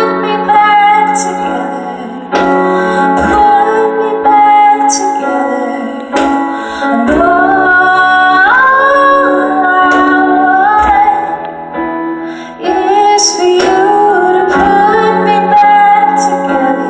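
Children's choir singing a song with live band accompaniment, a keyboard among the instruments, with sharp cymbal-like strikes now and then.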